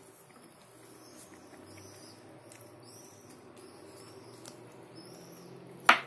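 A small bird chirping over and over in high, quick chirps, two or three a second, with a faint low hum underneath. One loud, sharp click comes near the end.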